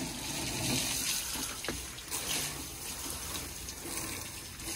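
Water from a garden hose spraying and splashing, a steady rush.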